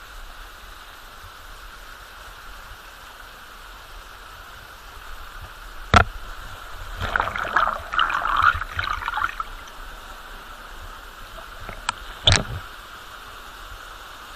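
Waterfall rushing steadily. A sharp knock about six seconds in is followed by a few seconds of louder crackling, and there is another sharp knock near the end.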